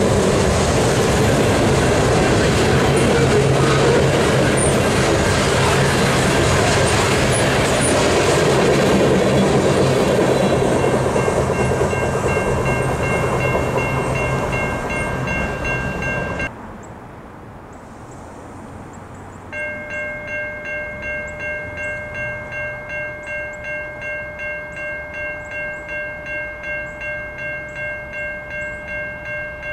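Freight cars rolling past on the rails with heavy wheel noise as the end of the train goes by, while a grade-crossing bell starts ringing over it. About two-thirds of the way through the train noise stops, and a grade-crossing bell rings on its own, pulsing about one and a half times a second.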